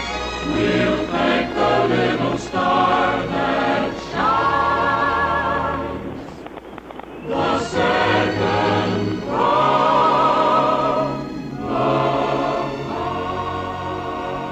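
Music: a choir singing long held notes, closing a song.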